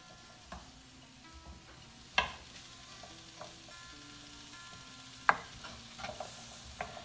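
Diced butternut squash and parsnips sautéing in olive oil in a skillet, stirred with a wooden spatula that knocks sharply against the pan about two seconds in and again about five seconds in, with lighter knocks near the end.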